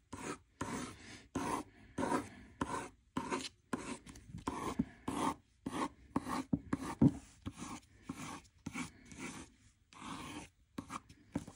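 Derwent Lightfast coloured pencil scratching over painted paper in quick repeated strokes, about three a second, as thin twig lines are drawn.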